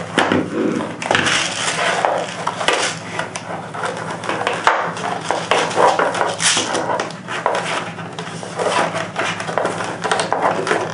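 Product packaging being opened and handled by hand: continuous rustling and scraping with many small knocks.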